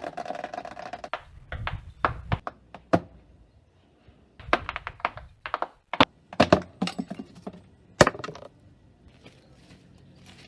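A series of sharp knocks and thunks, coming in clusters, with a clattering patch at the start and one loud knock about eight seconds in.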